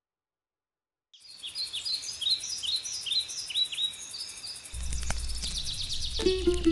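Silence for about a second, then a bird chirping over and over in short high calls, roughly two a second. A low steady rumble comes in about halfway through, and musical notes begin near the end.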